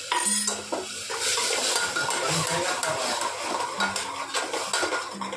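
A metal spoon stirring and scraping in a black pot of frying onion-garlic masala, with many quick clinks against the pot over a sizzle.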